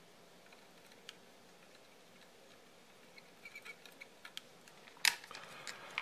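Soldering a crimp ring lug onto a plug wire with a soldering gun and rosin-core solder: faint scattered ticks and small crackles, then one sharp click about five seconds in.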